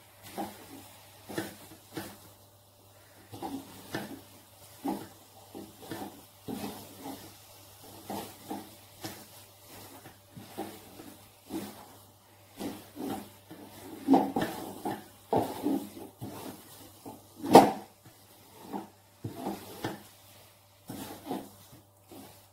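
Wooden spatula scraping and stirring a dry, cooked-down sesame-and-sugar mixture in an aluminium wok: irregular scrapes about one or two a second, with one louder knock against the wok a little past two-thirds of the way through.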